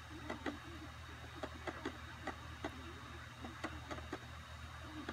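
Irregular light clicks, roughly three or four a second, over a steady low hum.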